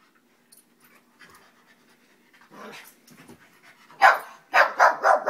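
Pug puppies barking during a play-fight: mostly quiet at first, then a quick run of four or five short, loud barks in the last second or so.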